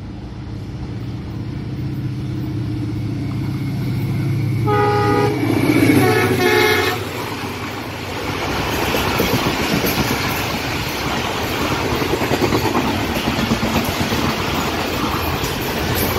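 ZCU-30 diesel-electric locomotive approaching at speed with its engine running, growing louder, then sounding its horn in two blasts about five seconds in. After that, passenger coaches pass close by with a rhythmic clatter of wheels over the rail joints.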